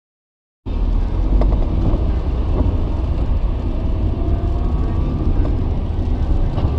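Silence, then a car's in-cabin noise cuts in about half a second in: a steady low rumble of engine and tyres on the road, heard from inside the car.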